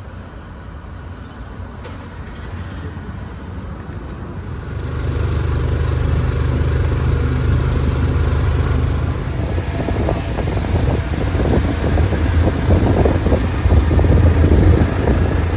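Engine of a Philippine motorcycle tricycle running with a low rumble, getting louder about five seconds in and staying loud.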